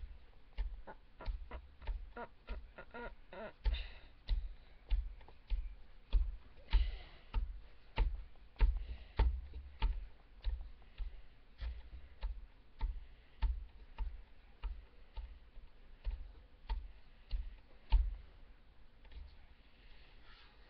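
Steady rhythmic tapping close to the microphone, about two taps a second, each a dull thump with a sharp click, stopping near the end.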